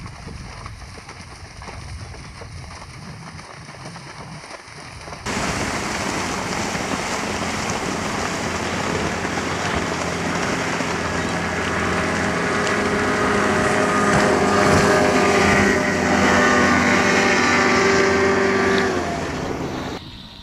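A motor running steadily, with wind buffeting the microphone. It cuts in abruptly about five seconds in, grows louder toward the middle and drops away near the end.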